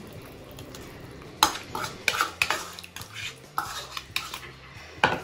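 Wire whisk clinking and scraping against a steel bowl while mixing wheat-flour dosa batter, in a run of irregular sharp strokes starting about a second and a half in.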